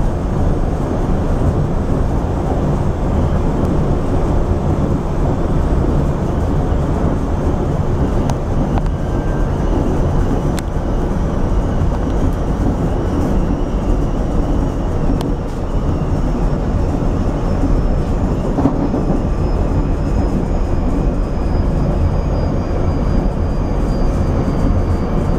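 Interior running noise of a Rotem Silverliner V electric commuter railcar at speed: a steady, heavy rumble of wheels on rail, with a faint high whine that slowly falls in pitch in the second half and a couple of single clicks.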